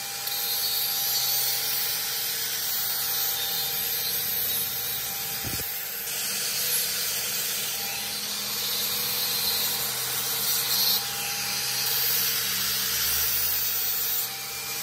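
Electric angle grinder with a thin abrasive disc grinding a small steel part: a steady high hiss of the disc on metal over the motor's steady whine. The hiss brightens and eases a little as the disc is pressed on and eased off, with one brief knock near the middle.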